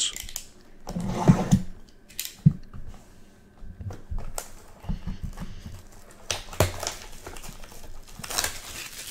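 Hands getting a small cardboard box of trading cards open and handling its stack of wrapped card packs: irregular crinkling and rustling of wrappers and cardboard, with scattered sharp taps, the sharpest about two and a half seconds in.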